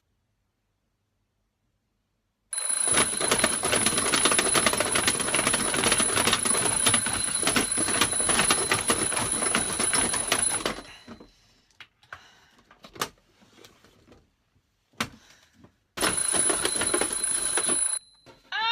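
Alarm clock bell ringing loudly for about eight seconds, stopping, then ringing again for about two seconds near the end. A few separate knocks sound in the pause between.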